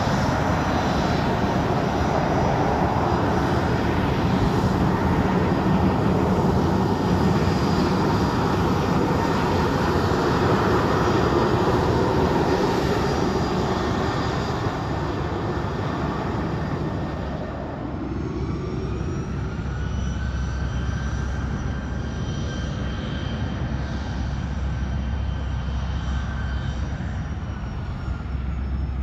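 Bombardier Challenger business jet's turbofan engines running steadily as it taxis past, with a whine over the jet noise. About two-thirds of the way in, the sound changes to a more distant jet whose engine whine rises in pitch and then holds steady: a Cessna Citation CJ2+ on the runway.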